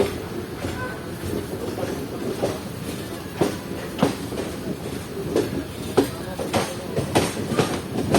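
Passenger express train rolling out of a station, a steady rumble with wheels clacking over rail joints; the clacks come closer together toward the end as it picks up speed.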